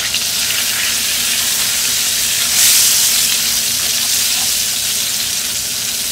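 Cumin seeds and dry red chillies sizzling in hot butter and oil in a frying pan as they are stirred: the tempering (tadka) stage, the spices blooming in the fat. The sizzle is steady and swells louder for a moment about two and a half seconds in.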